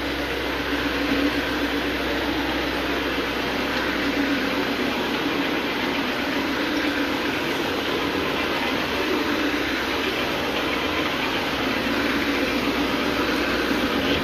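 Counter-rotating brush (CRB) carpet scrubber running steadily as it agitates the carpet, a continuous motor-and-brush whir; a deeper hum underneath fades out about six seconds in.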